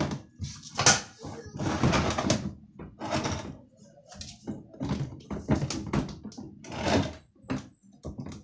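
Irregular hollow plastic knocks and scraping as a Fujitsu dryer's plastic cabinet is shifted and rocked into place on its base.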